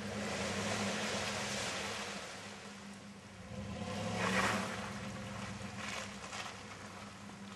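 Chevrolet Silverado pickup's engine running steadily as the truck drives through mud, its spinning tyres throwing mud and water with a rough splashing hiss. The splashing swells to its loudest about four seconds in, with a few short spatters near the end.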